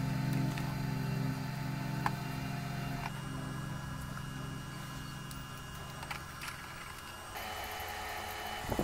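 Electric motor of a small RC boat running steadily, slowly getting quieter, with a thump right at the end.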